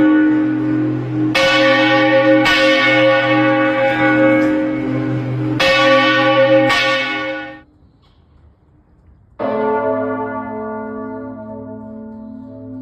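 Church bells ringing, with four fresh strikes, each leaving a long ringing tone with many overtones. The ringing cuts off abruptly about two-thirds of the way in. After a short lull a single bell strike rings out and slowly fades.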